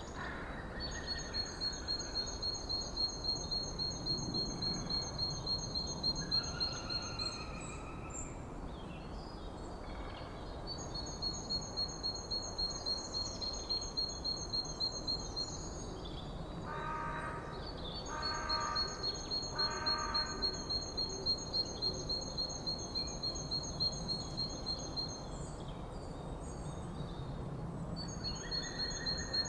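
Outdoor background noise with a high, rapidly pulsing whine that comes and goes in stretches of several seconds. Three short bird calls come about two-thirds of the way through.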